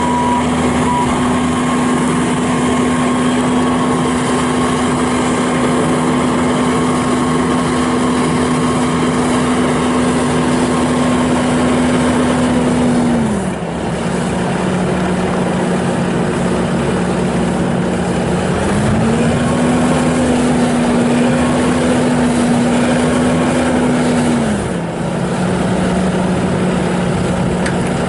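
2016 Bobcat S750 skid steer loader's diesel engine running steadily at speed, dropping to a lower speed about halfway through, climbing back up a few seconds later, then dropping again near the end.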